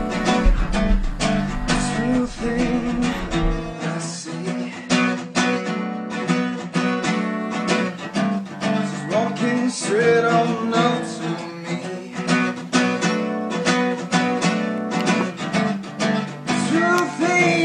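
Background music: acoustic guitar strummed and plucked in a steady rhythm.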